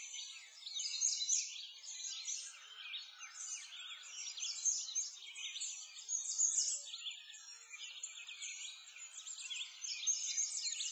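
A chorus of many small birds chirping and singing, with quick high chirps overlapping without a break.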